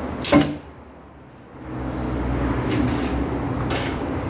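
A short burst from an air impact wrench on a rusty, spring-loaded exhaust bolt about a third of a second in, followed from about a second and a half in by a steady low rumble.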